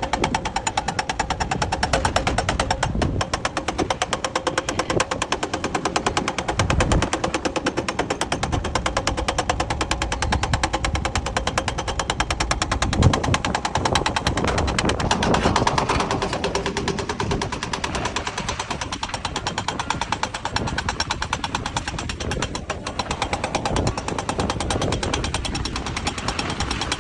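Hydraulic rock breaker on an excavator hammering rock in a rapid, steady rattle of blows, with the machine's engine running underneath.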